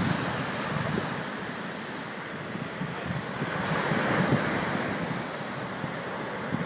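Storm surf breaking on a sandy beach in hurricane conditions: a steady rush of waves that swells up around four seconds in, with a low rumble of wind on the microphone underneath.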